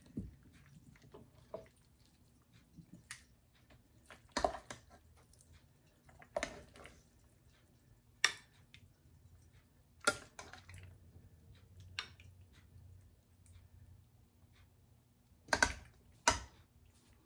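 A serving spoon scooping sticky, sauce-coated dumplings out of a stainless-steel bowl into a glass bowl: scattered clinks and taps of the spoon against the bowls with wet, sticky sounds between. The two loudest clinks come close together near the end.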